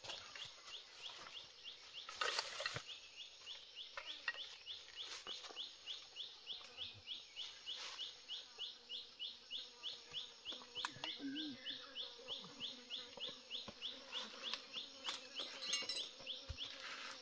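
An insect chirping in a fast, even series of short high chirps that never pauses, with scattered clicks and a brief rustling burst about two seconds in.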